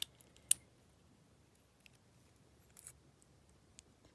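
Small sharp clicks from handling a padlock and its key: two near the start, the second the loudest, then a few fainter ticks about a second apart.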